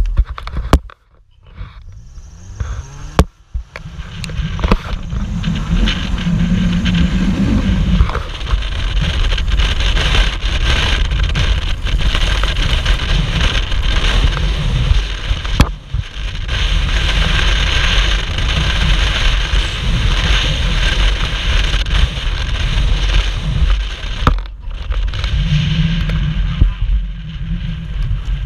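Turbocharged Chrysler PT Cruiser driving across a rough grassy field, its engine and tyre noise steady and loud, heard from a camera held out of the passenger window. The sound is much quieter for the first two or three seconds, then comes in full.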